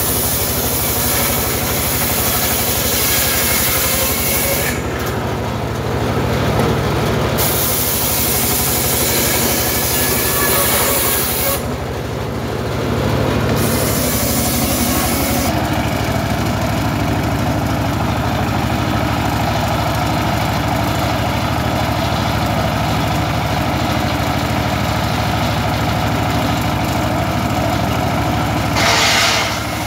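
Engine-driven circular saw bench running steadily while timber is ripped on it. A high cutting hiss from the blade comes in for stretches of a few seconds, three times in the first half, and once more briefly and loudly near the end.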